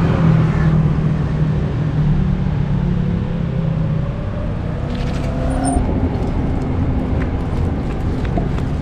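Road traffic: a motor vehicle's engine running close by, with a strong low hum that eases after about four seconds over a steady noisy rumble.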